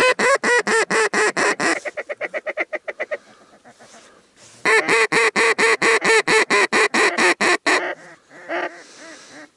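Hunter's duck call blown in long, rapid strings of quacks, about six a second: the first string trails off and fades, and a second loud string starts about halfway through and breaks off near the end.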